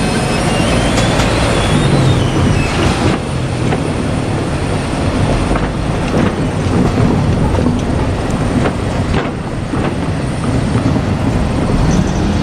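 A KiHa 47 diesel railcar set running past at close range: a steady loud rush of engine and running noise, with a few sharp clacks as the wheels cross rail joints.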